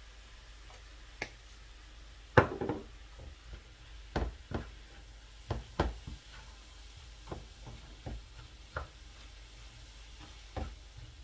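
A wooden spatula stirring ground-meat kefta and onion in a nonstick frying pan, with irregular knocks and scrapes against the pan over a faint sizzle. A sharp knock about two and a half seconds in is the loudest sound.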